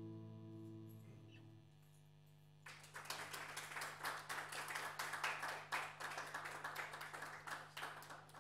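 The final electric guitar chord rings out with a slow pulsing and fades away. About three seconds in, an audience breaks into applause that lasts for about six seconds.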